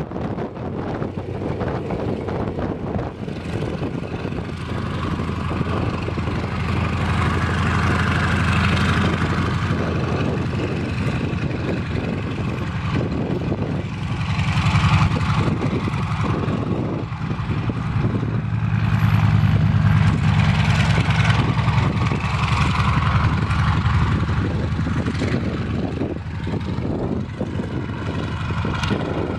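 Antonov An-2's nine-cylinder radial engine and propeller running steadily as the biplane taxis. The drone swells louder and eases back a few times.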